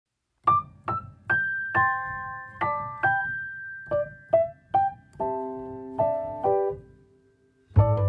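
Background piano music: a gentle melody of single struck notes that moves into held chords about five seconds in, with a brief pause near the end.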